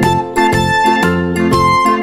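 Background music: a quick melody of short notes over a changing bass line.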